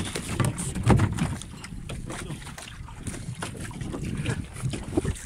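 Wind buffeting the microphone on a small inflatable dinghy at sea, with water lapping and irregular small knocks and splashes against the hull.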